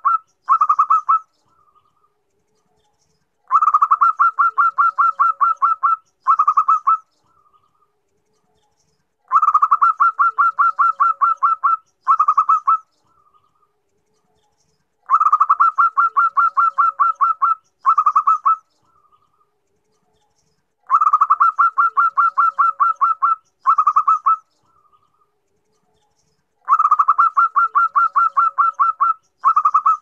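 Zebra dove cooing its rhythmic song: a fast run of clipped coos for about two and a half seconds, a short pause, then a brief burst of a few more. The phrase repeats about every six seconds, five times over. The uploader presents it as a female calling to a male.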